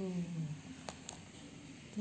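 A woman's voice trailing off, then a single sharp click a little under a second in and a fainter tap just after as a leather zip wallet is handled; otherwise a quiet room.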